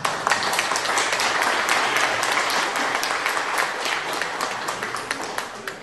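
Applause, many hands clapping densely, starting suddenly and fading out near the end.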